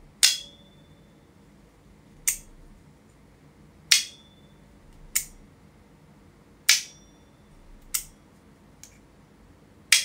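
Ju Zhen EDC Tenor magnetic haptic slider being flicked: about seven sharp metallic snaps, a second or two apart, as the halves snap into each notch. Several snaps carry a brief high ring after them, and the ring is strongest where the magnets pull the halves back into the original position.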